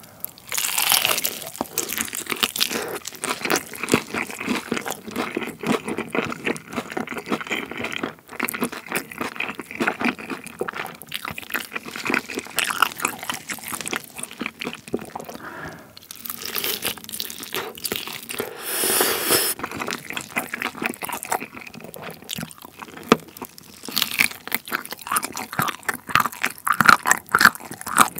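Close-miked biting and chewing of balsamic-glazed fried chicken: crisp crunches of the coating and the moist sounds of chewing, then meat being gnawed off the drumstick bone.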